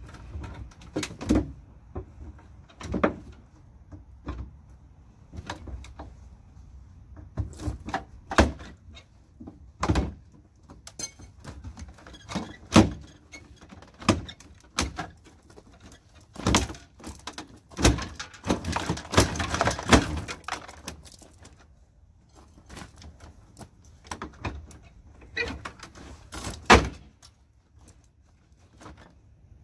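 The plastic front grille of a crash-damaged 2007 Chevrolet Impala being wrenched and pried out by hand: irregular plastic clicks, knocks and clunks as it resists, with a longer rattling scrape about two-thirds of the way through.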